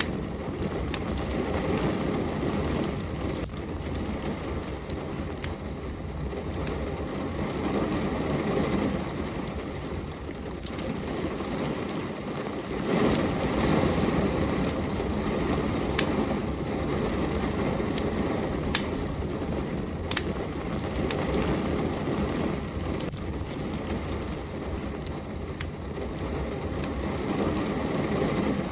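Steady rain hissing and rumbling, with a wood fire crackling over it in sharp pops about once a second.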